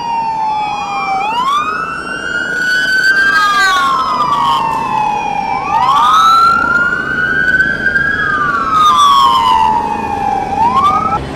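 Several police car sirens wailing at once, their slow rising and falling tones overlapping out of step. The sirens cut off abruptly near the end.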